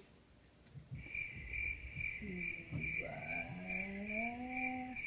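A high chirping tone pulsing evenly about twice a second, starting about a second in. From about two seconds in, a person's voice holds a long, slowly rising 'hmm'.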